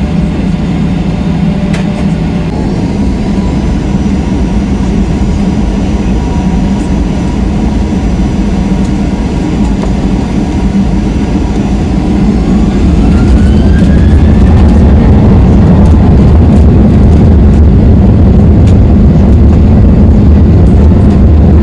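Boeing 737-800's CFM56-7B jet engines heard from inside the cabin, running steadily at first, then spooling up with a rising whine a little past halfway, after which the cabin noise and low rumble grow louder and stay loud: the engines going to takeoff thrust.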